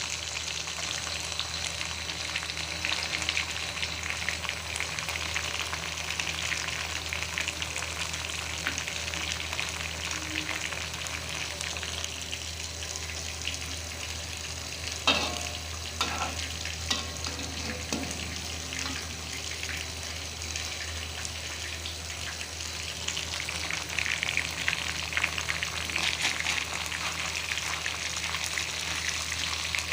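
Food sizzling and crackling steadily in hot oil in a pan, with a few knocks or scrapes about halfway through.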